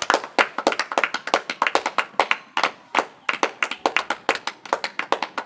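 A small group of people clapping their hands, quick and uneven, several claps a second.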